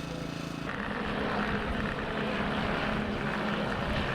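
Propeller aircraft engine running, with a steady low hum that gets a little louder; the sound changes abruptly less than a second in.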